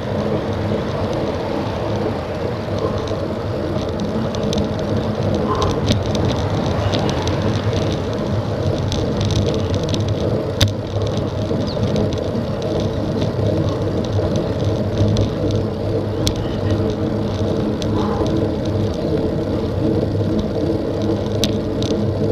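Road bicycle climbing, heard on an action camera's microphone: a steady rumble of wind and tyre noise, with a few sharp clicks, the loudest about ten seconds in.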